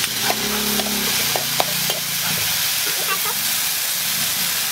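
Dried red chillies and chopped garlic sizzling in hot oil in a metal wok, with a dark sauce added, and a metal spatula stirring. Several sharp clicks of the spatula against the pan come in the first two seconds.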